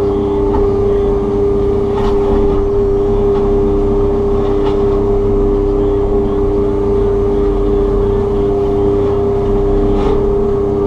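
Takeuchi TB290 excavator running with its FAE forestry mulching head, a steady loud drone carrying two held tones that do not change in pitch, with a few faint ticks from material striking the head.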